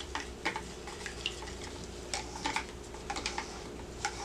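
Stirring sticks tapping and scraping in plastic pouring pitchers as mica colorant is mixed into liquid cold-process soap batter: scattered light clicks and scrapes over a steady low hum.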